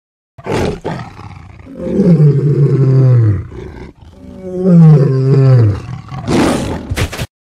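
Tiger roar sound effect from an animated 3D tiger: a short roar, then two long roaring calls that each slide down in pitch, then a breathy hissing burst and a few sharp clicks before it cuts off suddenly.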